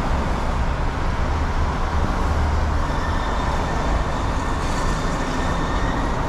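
Road traffic on a wide city avenue: a steady rush of cars and trucks driving past.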